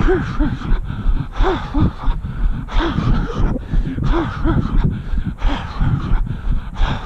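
Runner breathing hard in a steady rhythm, with short voiced puffs in pairs, over regular footfalls on the asphalt during a long run.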